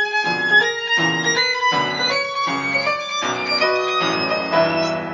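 Violin playing a run of quick, changing notes, accompanied by an upright piano.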